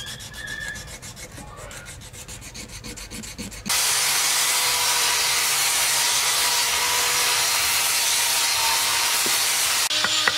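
Sandpaper rubbed in quick strokes over a small carved wooden elephant. After about three and a half seconds it cuts abruptly to a loud, steady hiss. Near the end a wooden mallet starts knocking on a carving chisel.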